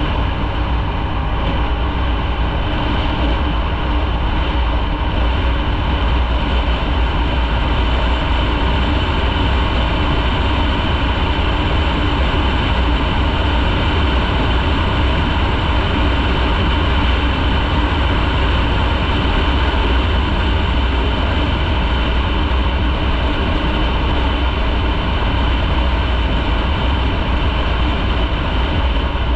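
Motorcycle being ridden at a steady cruise: a continuous rush of engine and road noise that holds even, with no revving or stops.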